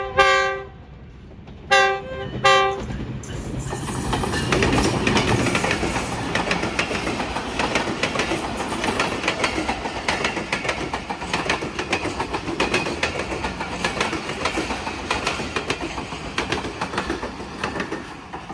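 A GE GEU-20 diesel-electric locomotive's horn finishes one blast, then gives two short blasts about two seconds in. After that an express passenger train's coaches pass at speed, wheels clicking rhythmically over the rail joints, and the sound fades near the end.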